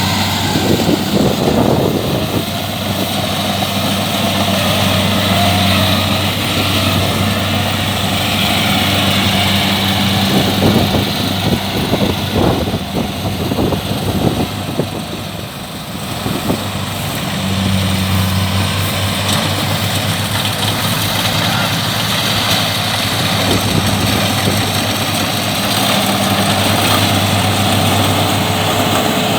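Kubota DC-70 combine harvester's diesel engine running steadily, with a few sharp knocks a little before the middle and a brief drop in level just after.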